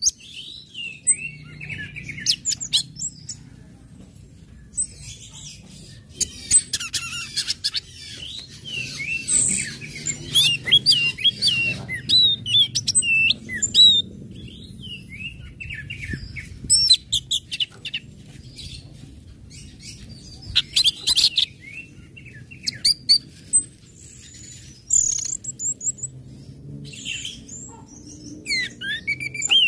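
Orange-headed thrush (anis merah) singing a long run of varied, quick high chirps and whistled slurs, broken by several fast bursts of rapidly repeated notes. A faint low hum runs beneath.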